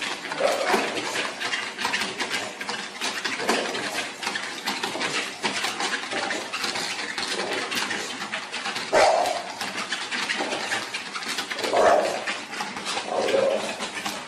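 A bulldog puppy gives about five short yaps and whines, spread out, while its claws scratch and click on a treadmill belt.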